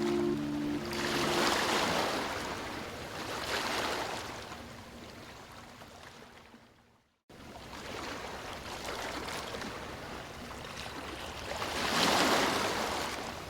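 Ocean surf: waves washing in and breaking in long, slow surges that swell and ease. The sound fades out to a brief silence a little past halfway, then the surf builds again. A few held music notes end in the first second or so.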